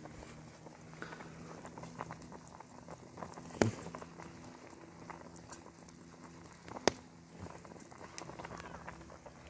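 Birch campfire crackling under a cooking pot, with small pops throughout and two sharper cracks, about three and a half and seven seconds in.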